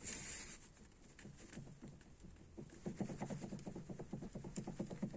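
BMW 5 Series steering shaft being shaken up and down by hand, its spline joint clattering in a fast run of short knocks, about ten a second, from about three seconds in. The clatter comes from the worn-out spline pair of the steering shaft.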